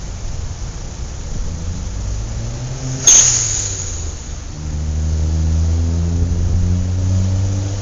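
Road traffic heard from a moving bicycle: steady wind and road noise, a sudden loud crack about three seconds in, then a nearby motor vehicle's engine running steadily from about halfway through.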